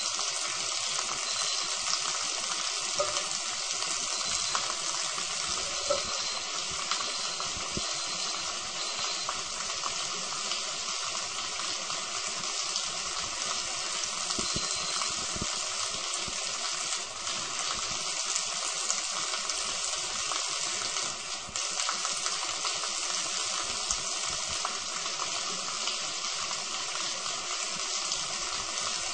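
Water pouring down in a steady, unbroken rush.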